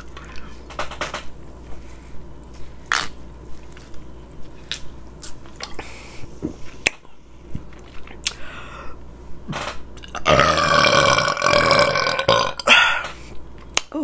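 A woman's long, loud burp about ten seconds in, lasting about two seconds and followed by a shorter burp, after she drinks soda from a plastic bottle. Before it there are only a few faint clicks.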